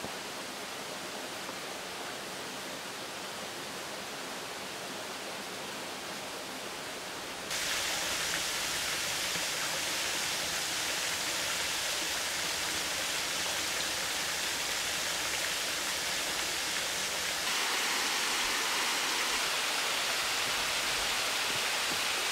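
Steady rushing of water, an even hiss. It grows suddenly louder twice, about a third of the way in and again near three quarters through.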